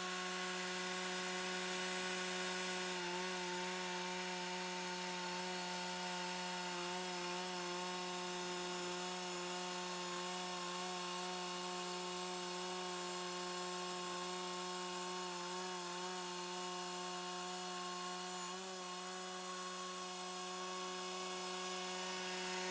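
Cook's SW-52 band sawmill running at a steady pitch as its blade cuts a board out of a log cant, the pitch wavering slightly a few times.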